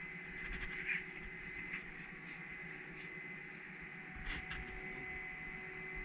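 Steady machinery hum with a thin high whine, and a few light clicks and knocks, about a second in and again past four seconds.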